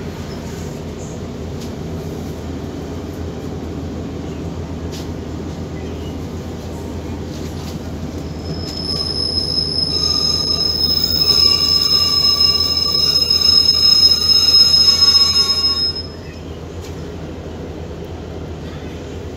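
Passenger train rumbling from inside the carriage as it slows into a station. About halfway through, a loud, high-pitched brake squeal of several steady tones sets in and cuts off suddenly as the train comes to a stand, leaving a lower steady rumble.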